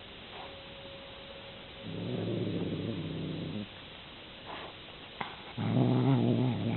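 Domestic cat growling in long, low, drawn-out growls: one of nearly two seconds, then another starting about a second before the end. A single sharp click comes just before the second growl.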